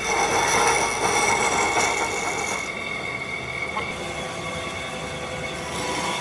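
Power tool running steadily with a whine over a noisy hiss; the high hiss drops away for about three seconds in the middle, then returns.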